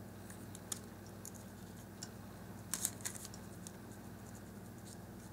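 A few faint, short clicks and taps of small craft-stick wood pieces being handled and fitted together by fingers, a small cluster of them about three seconds in, over a steady low hum.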